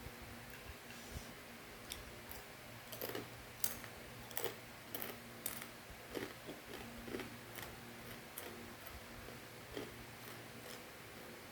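Sharp irregular crunches from crispy fried macaroni snack being chewed, clustered in the middle few seconds, over a low steady hum.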